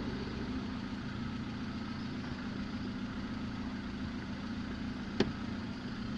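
LADA engine idling steadily with the gearbox running quietly, free of the earlier knock now that worn input-shaft bearings have been replaced. A single sharp click about five seconds in.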